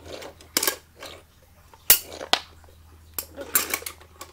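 Hard plastic toys knocking and clicking as they are handled on a wooden floor: a few scattered taps and rattles, with one sharp click about two seconds in.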